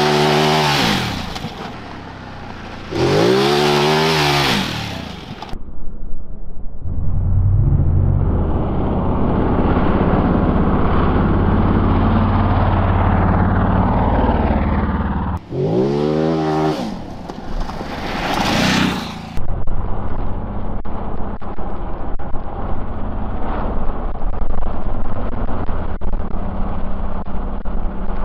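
Ducati DesertX's 937 cc L-twin engine revving hard up and down in several quick bursts, with steadier running between them. Later it runs steadily under a scatter of light clicks and clatter.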